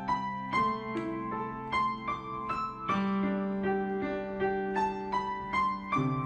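Background piano music: a slow melody of single struck notes over held low bass notes.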